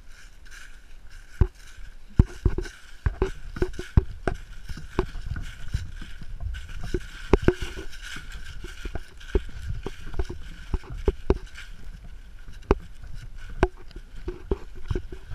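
Irregular knocks and clatter close to the microphone of a camera strapped to a rig, over a low rumble and a faint steady high whine.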